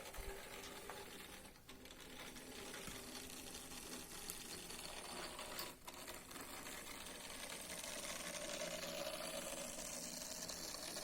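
Model train motor coach running along the track under DCC power, its small electric motor and wheels whirring steadily and growing louder in the second half.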